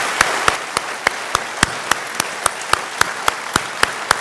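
Congregation applauding, a dense patter of clapping with some loud claps falling in an even rhythm of about three or four a second.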